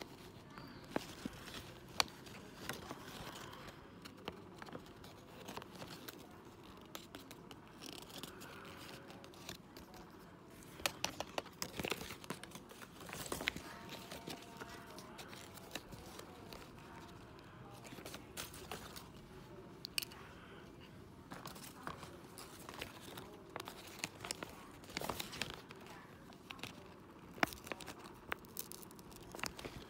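Paper instruction leaflet rustling and crinkling as it is unfolded and handled, with scattered small clicks and taps throughout.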